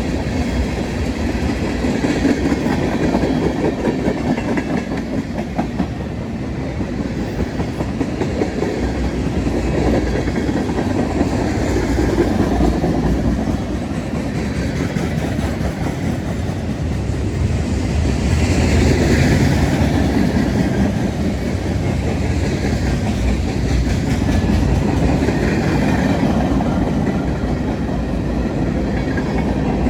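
CSX freight train's cars rolling past at speed: a steady rush of wheel and rail noise that swells and eases, with no horn.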